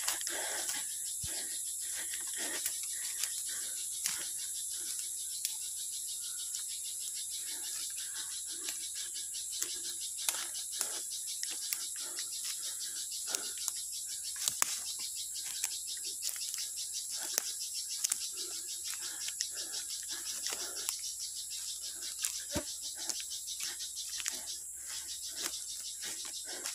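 Steady high-pitched drone of a forest insect chorus, with irregular light crunches of footsteps on dry leaf litter throughout.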